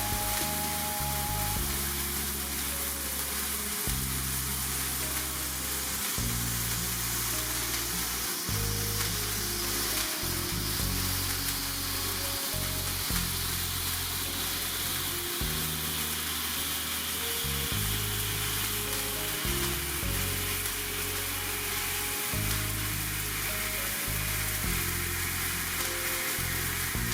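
Birthday cake sparkler candle burning with a steady fizzing hiss, over background music with a changing bass line.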